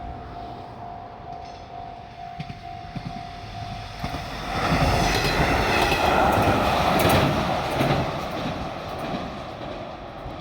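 A level-crossing alarm chimes over and over in a steady repeated tone. About four and a half seconds in, a diesel railcar train passes loudly with wheel clatter and engine noise, which fades away over the last couple of seconds.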